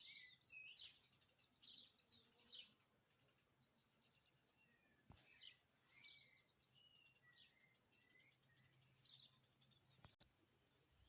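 Faint birdsong: several small birds chirping and twittering in quick, high-pitched notes, with short whistled calls mixed in.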